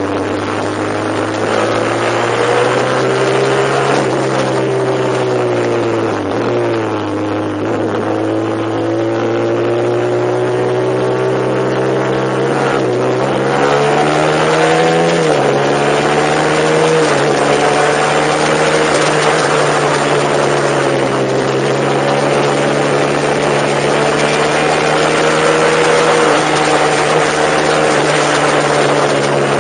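A vehicle's engine running steadily while being driven. Its pitch rises and falls with speed, with step changes about 6, 13 and 15 seconds in that sound like gear changes.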